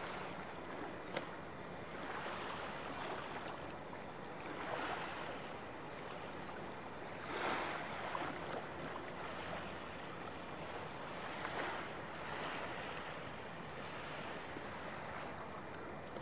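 Small Columbia River waves lapping on a sandy shore, washing in softly every few seconds over a steady hiss. A single faint click about a second in.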